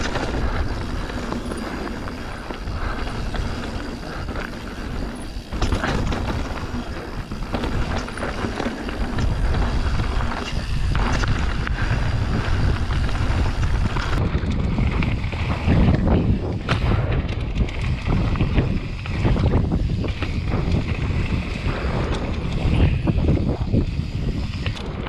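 Enduro mountain bike riding fast down a dirt trail: wind rushing over the camera's microphone and the rumble of tyres on dirt, with frequent knocks and rattles from the bike over bumps.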